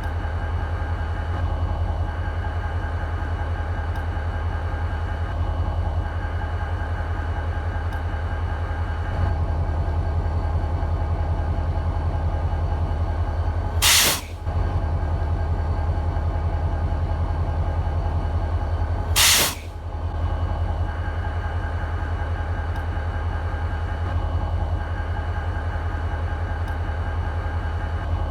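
EMD SD40-2 diesel locomotive's turbocharged two-stroke V16 idling steadily with a low, pulsing rumble. Twice, about five seconds apart, a short sharp blast of released air cuts through, the loudest thing heard.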